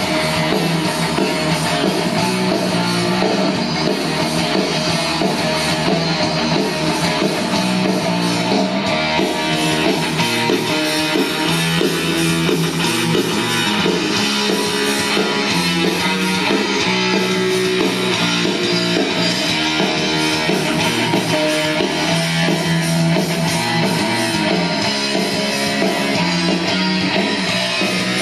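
Guitar-led music playing back from a cassette on a Technics RS-TR170 double cassette deck, steady in level throughout.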